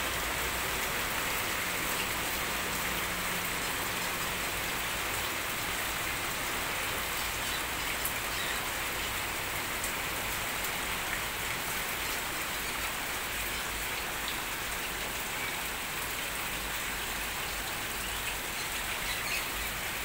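Steady patter of falling water, an even hiss with scattered small drips.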